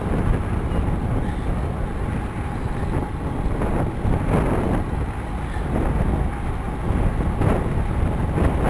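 Wind rushing and buffeting over the microphone of a camera mounted on a moving road bike, a loud, uneven low rumble.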